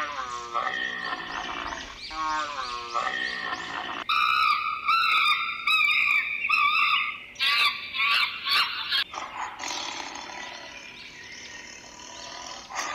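A run of animal calls: camels giving repeated groaning calls that fall in pitch, then a chimpanzee's high shrill calls, then tigers growling roughly near the end.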